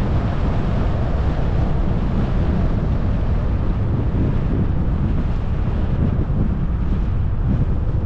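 Strong wind buffeting a helmet-mounted GoPro's microphone on a bicycle ride: a loud, steady, low rumbling rush.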